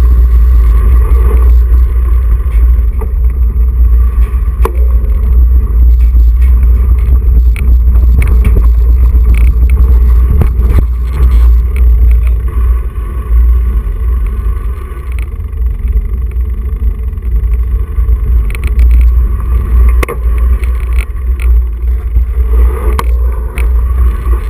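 Mountain bike ride heard through a GoPro camera: a loud, constant low rumble of wind and vibration on the microphone, with scattered clicks and rattles from the bike and tyres running over wet concrete.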